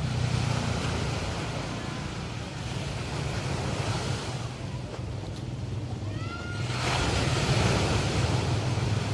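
Ocean surf breaking and washing up a beach, one wave at the start and a bigger one about seven seconds in, over a steady low engine hum. A short rising chirp sounds just before the second wave.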